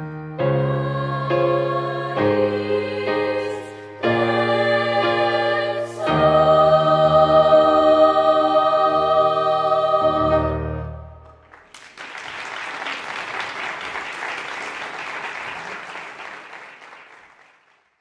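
Children's and youth choir singing with piano accompaniment, closing on a long held chord that ends about eleven seconds in. Audience applause follows and fades out near the end.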